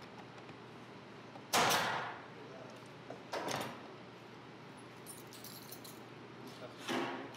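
Two sharp shots from a cordless nail gun driving nails into wood, under two seconds apart, the first the louder, each with a brief ringing tail; a softer knock near the end.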